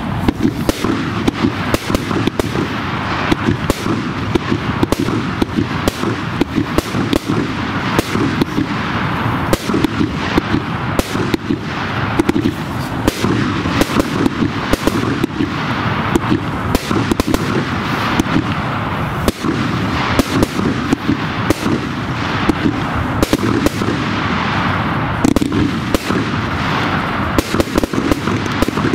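Fireworks display firing without a pause: a rapid stream of launch thumps and bursts, several bangs a second, over a continuous rushing, crackling noise.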